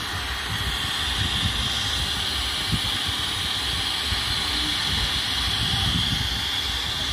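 CRT television hissing with white-noise static from its speaker, the set showing snow because it is getting no signal. The hiss is steady, with an uneven low rumble underneath.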